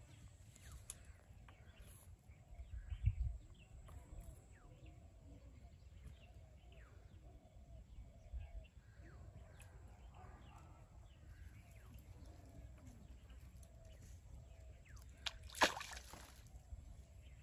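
Birds calling on and off in the background, then a short, sharp splash in the canal water near the end.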